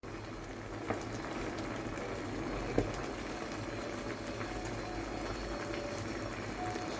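Seafood and basil stir-frying in a hot pan, a steady sizzling and bubbling, with two short knocks about one and three seconds in.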